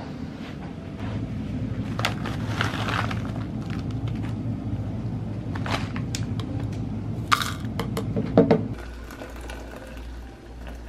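Crinkling of a paper tea pouch and sharp clicks of a plastic shaker cup being handled, over a low steady hum.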